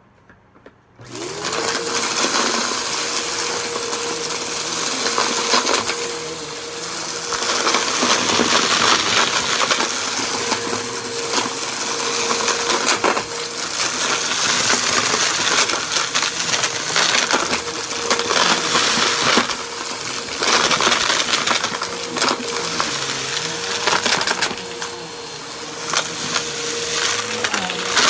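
Bissell PowerForce bagless upright vacuum switching on about a second in, its motor spinning up to a steady high hum. It is then run back and forth over shag carpet, clattering as it sucks up small beads and clumps of lint.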